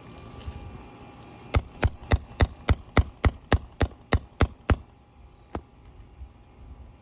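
Roofing hammer rapidly tapping a nail puller under a shingle, a quick run of about a dozen sharp metal strikes at roughly three or four a second, then one more after a short pause, working a roofing nail loose.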